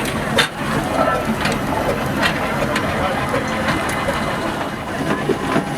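Steam traction engine running, with sharp clanks and knocks about once a second over a steady mechanical noise.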